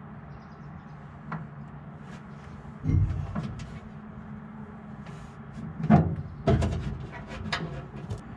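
Metal clunks and knocks as the petrol tank is shifted and set into position in the boot: a faint knock, a louder pair about three seconds in, and a cluster near the end. A steady low hum runs underneath.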